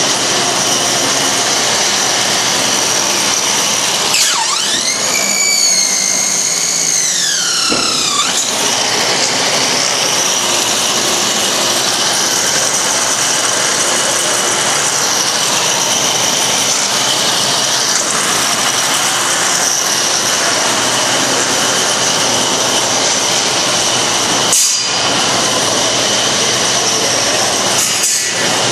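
Combat robots' electric drive motors whining over a steady mechanical hiss, one motor rising and falling in pitch for a few seconds near the start. A single sharp knock near the end.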